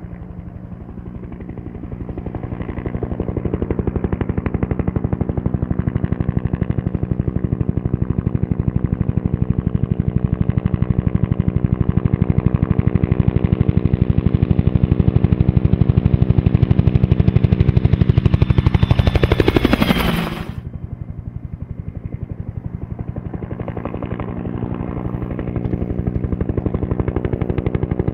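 Bell UH-1 Huey helicopter's two-bladed main rotor beating with rapid blade slap over a turbine whine, growing louder as it approaches. About twenty seconds in, a steeply falling whine as it passes close, then an abrupt drop to a quieter rotor beat.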